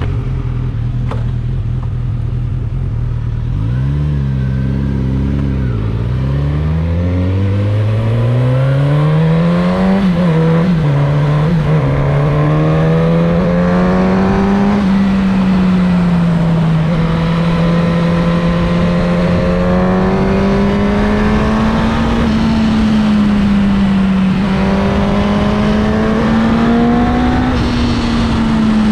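Suzuki GSX-S1000's inline-four engine accelerating hard. Its note climbs in steps with brief dips as it is shifted up through the gears in the first ten seconds or so. After that it holds at high revs, rising and falling with the throttle, over a steady rush of wind at speed.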